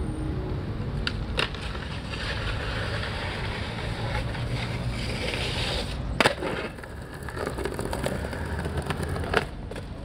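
Skateboard on concrete: a couple of clicks about a second in, then a steady scraping rush of the board moving along the concrete. A loud sharp smack of the board landing comes about six seconds in, with a smaller knock near the end.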